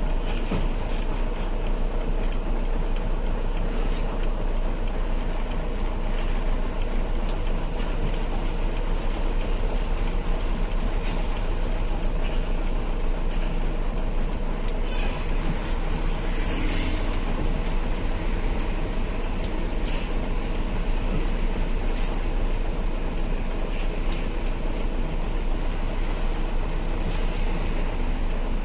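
Heavy truck, loaded with a piling machine, driving steadily on the road: constant engine drone with tyre and road noise.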